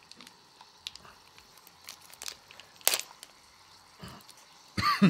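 Plastic food packets crinkling and crackling as they are handled and opened, with scattered clicks and one sharp click about three seconds in.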